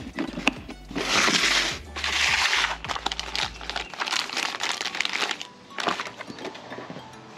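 Plastic tackle box and bait packages being handled: latches and lids clicking, and bags of soft-plastic fishing baits crinkling, with two longer rustles about one and two seconds in.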